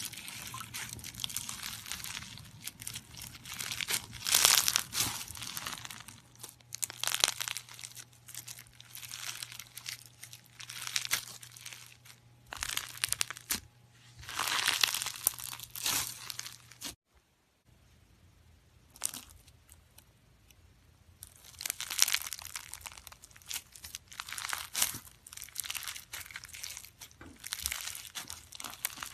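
Slime being squeezed and pressed by hand, making crackly, crinkling sounds in repeated bursts. The sound breaks off briefly a little past halfway, then starts again.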